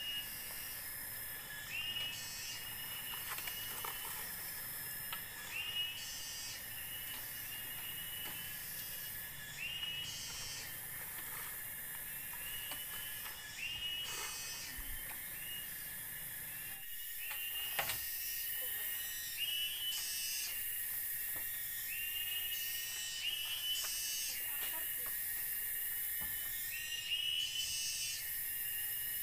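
Night-time forest animal chorus: a steady high shrill hiss with short chirping calls repeating every second or two, and a couple of quick clicks past the middle.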